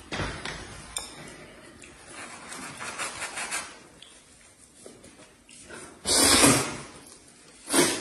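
Chopsticks knocking and clinking against plates and bowls, then a long, loud slurp of noodles about six seconds in and a shorter one near the end.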